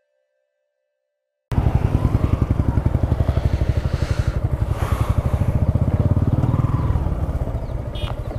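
Silence, then about a second and a half in a motorcycle engine cuts in abruptly, running steadily under way at road speed with a fast, even throb of firing pulses.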